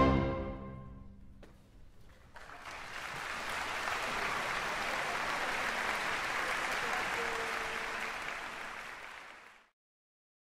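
A wind band's final chord dying away, then, after a short pause, an audience applauding steadily. The sound cuts off abruptly near the end.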